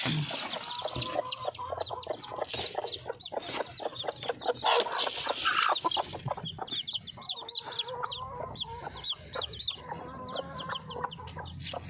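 Chicks peeping in rapid high, falling chirps while a desi hen clucks in low calls, with some rustling and scuffling.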